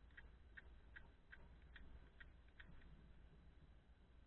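Used BMW E36 rear seat belt retractor clicking faintly as its webbing is handled: about seven evenly spaced clicks, roughly two and a half a second, stopping near the middle.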